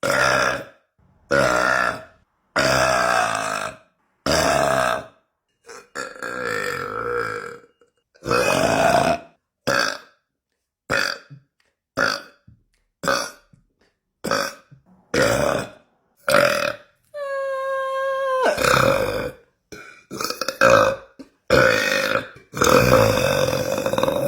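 A young woman burping over and over: a quick string of about twenty separate belches of varying length, with short silences between them. About two-thirds of the way through comes one longer burp held at a steady pitch.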